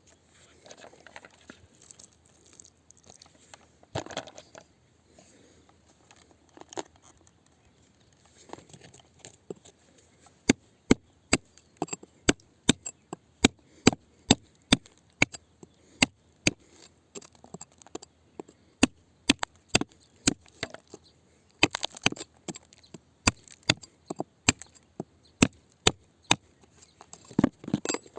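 Rock-digging tool scraping, then striking rock in a run of sharp knocks, about two a second with short pauses.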